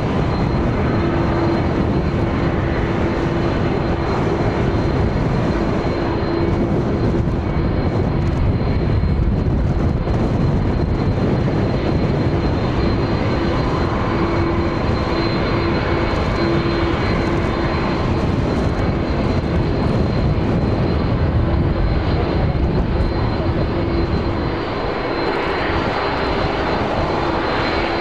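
Jet airliner engines running at idle: a steady loud rush with a constant droning tone and a thin high whine.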